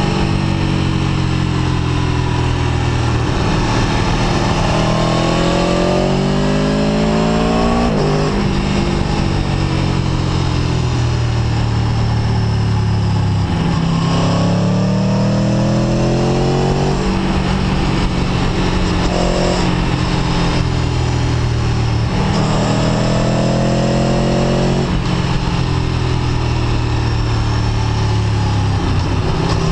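Aprilia Tuono V4 1100 RR's V4 engine heard from on board while riding. The revs climb under throttle and drop off sharply several times as the rider accelerates and backs off through the bends, over a steady rush of wind and road noise.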